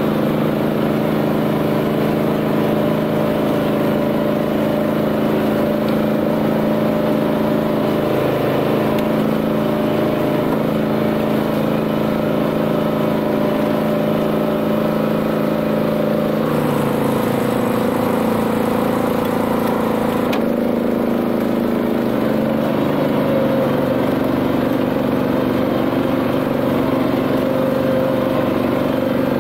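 BCS 740 two-wheel tractor, powered by a Honda GX390 single-cylinder petrol engine, running steadily while driving a flail mower through tall grass. Its note shifts slightly a little past the middle and again a few seconds later.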